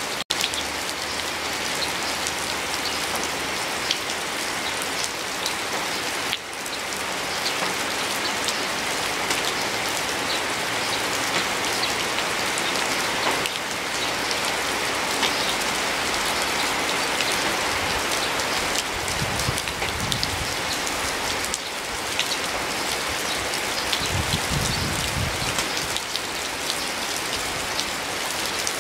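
Steady rain falling on leaves, a continuous hiss dotted with many small drop hits. A brief low rumble comes twice in the second half.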